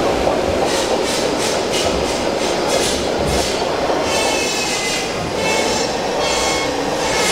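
Steady mechanical rumble and clatter of RC scale construction models working on a dirt course, with repeated light clicks and thin squeaks from about four seconds in.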